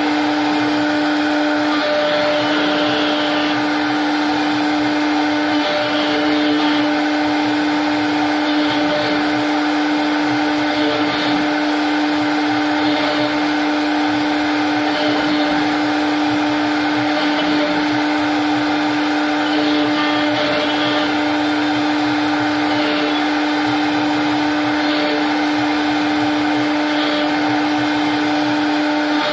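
CNC router spindle running steadily, with a constant high whine over a steady rushing noise.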